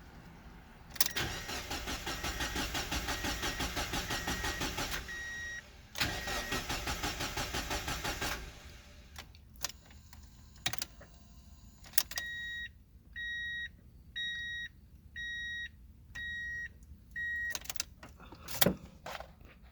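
Car engine cranking on the starter without firing, a steady rhythmic cranking for about four seconds, then a short pause and a second crank of about two seconds that also fails to catch: a crank-no-start caused by too large a gap between the crankshaft position sensor and its timing tab. Afterwards come a few clicks, six short electronic beeps about a second apart, and a thump near the end.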